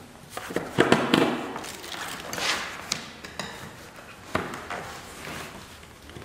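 Hand-work sounds as a rivet and thick washer are fitted through a strap held with locking pliers: a string of small clicks and knocks, a cluster of them about a second in, with a short rustle of the fabric skin and another knock a little after four seconds.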